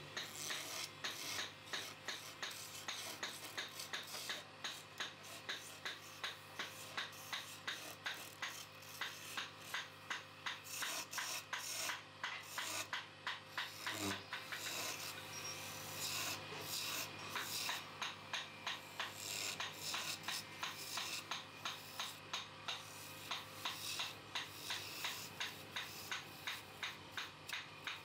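Lathe tool cutting a spinning wooden table-leg spindle: a rapid run of short rasping, scraping cuts, several a second, over the steady hum of the lathe's motor.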